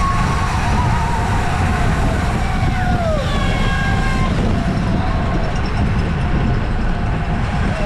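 Steady low wind rumble buffeting the microphone during a bicycle race, with a few faint, wavering high-pitched calls over it.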